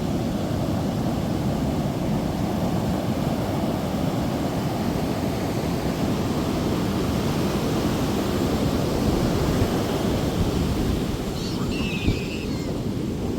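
Steady wash of ocean surf with wind on the microphone. A brief high chirp sounds near the end.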